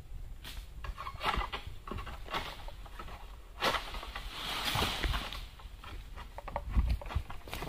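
Scattered rustling and light knocks of a long-poled egrek palm sickle being worked up among oil palm fronds, with a longer rustle of fronds about halfway through and a sharp knock near the end.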